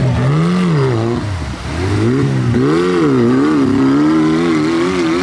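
Tractor engine revving, its pitch rising and falling again and again, with a short drop in loudness about a second and a half in.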